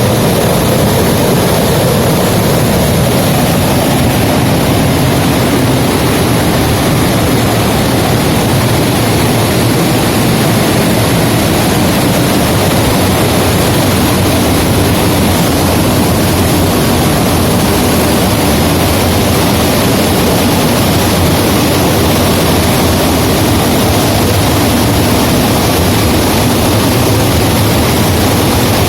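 Heavy water pouring over a dam spillway and falling like a waterfall: a loud, steady rushing.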